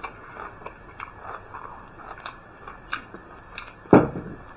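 Close-up chewing and biting, soft irregular mouth sounds of eating a steamed bun, with one louder burst about four seconds in.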